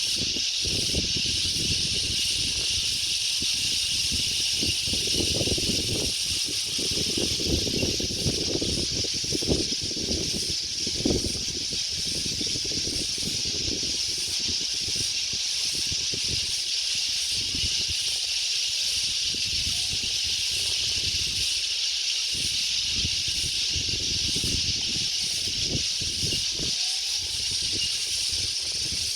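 Wind gusting and rumbling on the microphone over a steady high hiss. Faint short rising and falling calls, such as birds make, come a few times in the second half.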